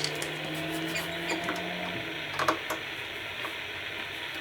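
Static hiss from a Realistic TRC-57 CB base station's receiver, with a low hum that stops about two seconds in and a few sharp clicks, the loudest about halfway through.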